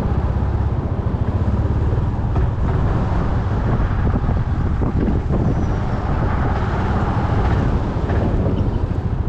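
Yamaha Majesty 400 scooter's single-cylinder engine running on the move, under heavy wind buffeting the microphone. The sound stays steady throughout.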